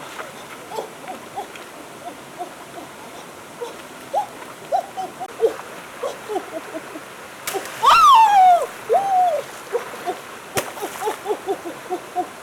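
Animal calls: many short, pitched chirps repeating throughout, with one louder call falling in pitch about eight seconds in, followed by a shorter rising-and-falling call.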